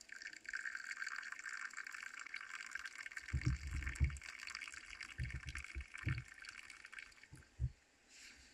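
Water pouring for about seven seconds, starting abruptly and tailing off, with a few low thuds midway.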